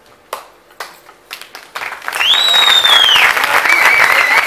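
Audience applause that starts as a few scattered claps and swells into full, loud applause after about two seconds, with shrill whistles that rise and fall over it.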